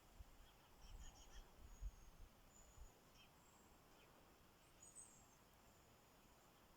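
Near silence, with faint high chirps, likely small birds, scattered through and a few soft low bumps in the first three seconds.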